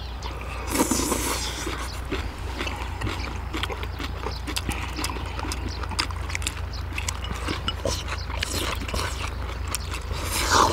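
People eating braised kimchi: chewing and mouth-smacking sounds with many small, irregular clicks, over a steady low hum.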